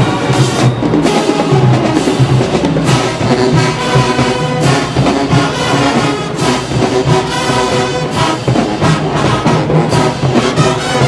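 Marching band playing at full volume: a brass section holding loud chords over a pounding drumline, with repeated drum hits throughout.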